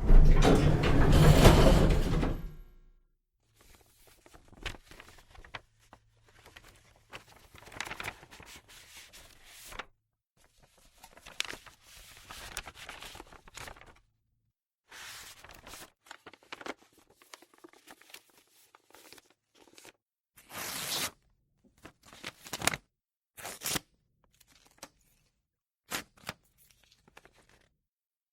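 Office paper and stationery handling: a loud rustling burst in the first couple of seconds, then a string of short rustles, tears, taps and thunks with pauses between them.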